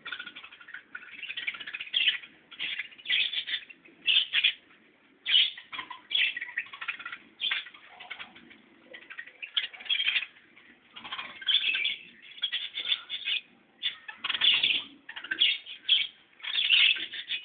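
Birds making a run of short, irregular bursts of sound, with wing flapping and calls.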